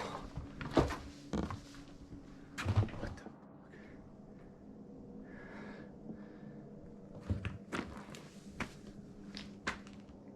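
Heavy steel chain ladder rattling and knocking in short irregular clanks, with a heavy thud about three seconds in. It goes quiet for a few seconds, then a few more scattered knocks come near the end.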